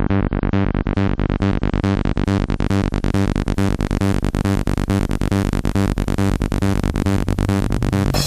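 Electronic dance music played loud through a large outdoor sound system on test. A fast, even synth pulse grows brighter and brighter, a rising build-up.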